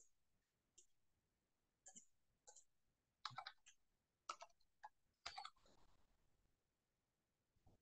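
Faint, irregular clicks of a computer keyboard and mouse: about ten short keystrokes and clicks, some bunched together, mostly in the middle few seconds.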